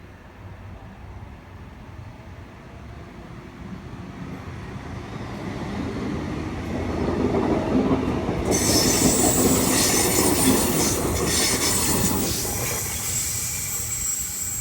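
Electric passenger train arriving, its rumble building steadily over several seconds; about eight and a half seconds in a high-pitched squeal sets in suddenly and carries on as the train runs past, with the rumble easing slightly near the end.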